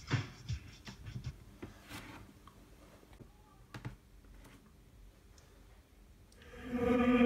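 Music from a car audio speaker in a hi-fi box: a beat-driven track dies away in the first second, leaving a lull with a few faint clicks. Near the end a new track starts with a steady droning chord.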